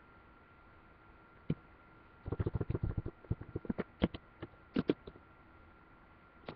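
Typing on a computer keyboard: a single keystroke, then a quick run of key taps lasting about a second, then a few scattered taps.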